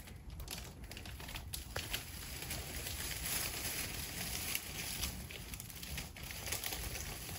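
Faint rustling and crackling with scattered light clicks over a steady hiss, a little louder in the middle.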